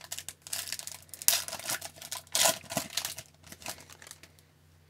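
A foil hockey-card pack being torn open and its wrapper crinkled, in a run of sharp rustling bursts, the loudest about two and a half seconds in.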